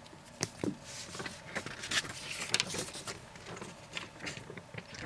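Light rustling with irregular small clicks and taps as the contents of a camcorder box (manuals, packaging and cables) are handled and moved about.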